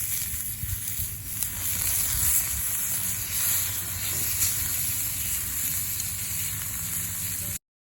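Strong wind blowing hard and buffeting the microphone, a steady loud hiss with irregular low rumbles. It cuts off suddenly near the end.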